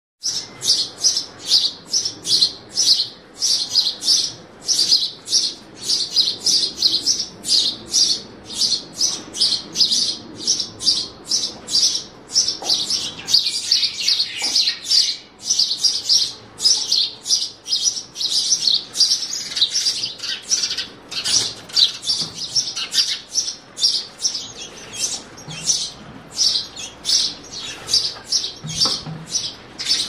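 Sparrows chirping at a nest box: short, sharp, high chirps repeated about two to three times a second, without a break.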